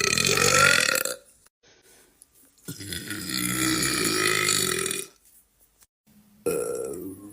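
A man burping: long, drawn-out burps, one trailing off about a second in, another lasting about two and a half seconds in the middle, and a third starting near the end.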